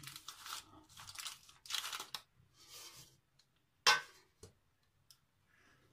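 A metal cake tin is lifted off an upturned cake, with its baking paper rustling and crinkling. About four seconds in comes a single sharp knock, the tin set down on the stone counter.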